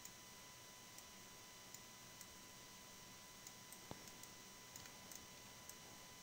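Near silence: faint, scattered clicks of a computer mouse and keyboard over a low electrical hum, with one sharper click about four seconds in.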